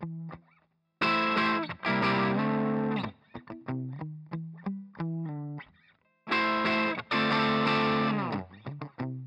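Music on electric guitar through effects: a run of short plucked notes broken twice by loud held distorted chords, about a second in and again about six seconds in, each sliding down at its end.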